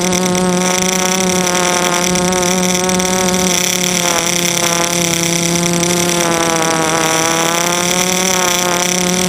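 DJI F330 quadcopter's electric motors and propellers buzzing steadily in flight, heard from the onboard camera, the pitch dipping slightly a couple of times as the throttle eases.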